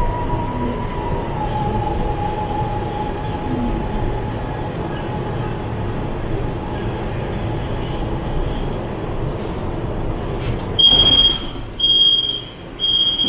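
Interior sound of a CSR Zhuzhou 'AMY' LRT car pulling into a station: steady running noise with a whine that dips slightly in pitch about a second and a half in. Near the end the passenger doors open to a short, high warning beep repeated about once a second.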